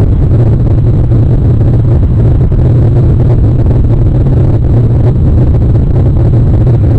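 Loud, steady low rumble with no breaks or distinct calls.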